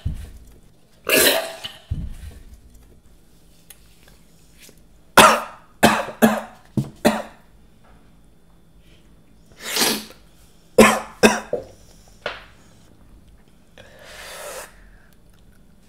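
A man coughing hard in several fits, about a dozen sharp coughs in clusters with pauses between, and a long breathy exhale near the end. He is choking on a shot of wasabi-spiked drink that burns his throat.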